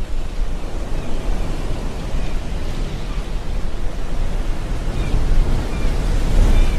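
Wind buffeting the microphone with a steady low rumble over the wash of water around the boat. A few faint, short, high calls are heard now and then.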